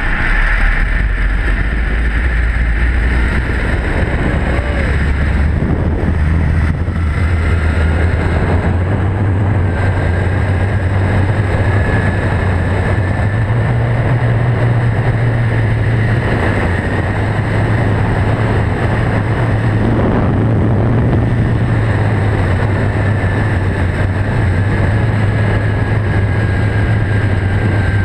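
Zip-line trolley's pulley wheels running along the steel cable, a steady whirring hum that steps up in pitch during the first half of the ride and then holds, with wind rushing over the microphone.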